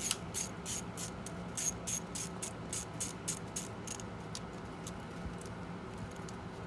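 Socket ratchet clicking in quick, uneven strokes, about three to four clicks a second, stopping about four seconds in, as a bolt on the motorcycle's engine is turned. A low steady hum runs underneath.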